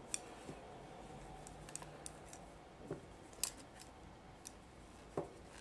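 Knitting needles clicking softly as stitches are worked, a few scattered faint clicks with the sharpest about three and a half seconds in and just after five seconds.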